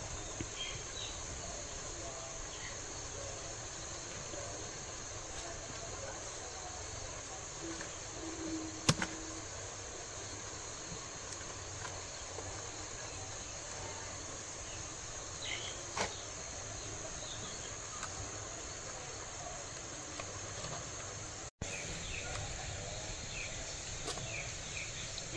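Steady high-pitched chirring of insects, with a sharp click about nine seconds in and a softer one about sixteen seconds in. The sound drops out for an instant a little after twenty seconds.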